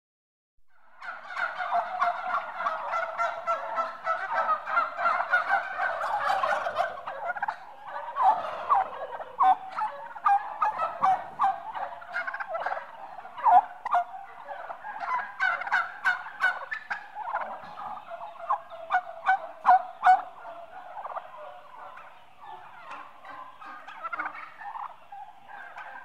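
A flock of eight-month-old turkeys, mostly hens, calling together. A dense overlapping chorus for the first seven seconds or so gives way to many short separate calls.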